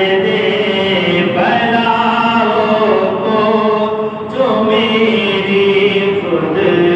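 A naat, devotional Urdu poetry in praise of the Prophet, sung unaccompanied in long, drawn-out melodic phrases, with short breaks about a second in and about four seconds in.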